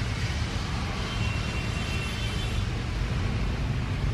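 Twin-engine jet airliner on final approach: a steady rumble and hiss with a faint high engine whine through the middle, mixed with a truck driving past close by.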